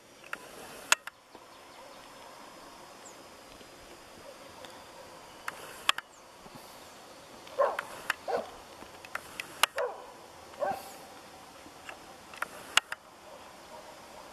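Outdoor rural background with a few short animal calls in the second half, and four sharp clicks spread through, which are the loudest sounds.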